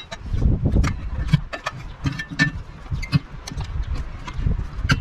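A pry bar levering the second bead of a new ST205/75R15 trailer tire over the rim: a string of knocks and clicks with low thuds, a few every second.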